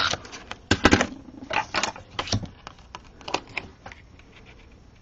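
Pieces of cardstock being handled, tapped and pressed down on a craft mat: a run of light, irregular clicks and taps that dies away near the end.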